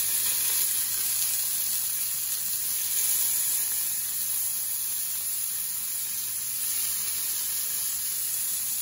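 Sea scallops searing in a smoking-hot cast iron skillet of olive oil and bacon grease: a steady, high sizzle. It is the sound of a pan hot enough to sear a crust rather than boil the scallops.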